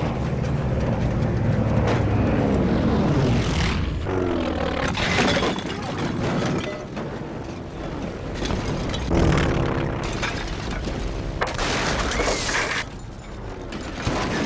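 Film sound of a propeller plane crashing into houses. The engine note keeps dropping in pitch as the plane dives low over rooftops. Loud crashes and smashing impacts come about five, nine and twelve seconds in, with music mixed underneath.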